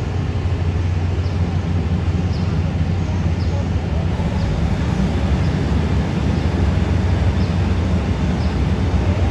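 A Thai railways diesel railcar's engine runs with a steady low rumble. Faint short high chirps come about once a second.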